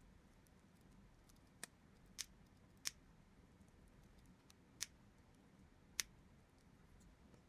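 Five short, sharp clicks at irregular intervals over near-silent room tone, from small hand-tool work on a power supply connector and its wires.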